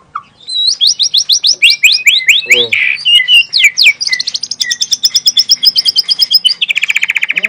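Young white-rumped shama (murai batu) singing a loud, fast phrase: quick runs of downward-slurred whistles, a buzzy note midway, then long rapid trills of repeated notes that drop lower near the end. These are the rapid-fire song bursts that bird-keepers call tembakan.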